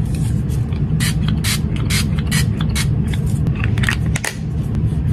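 Tower 28 facial spray's fine-mist pump bottle pressed again and again, a quick run of short hisses, several a second, that stops a little after four seconds in, over a steady low hum.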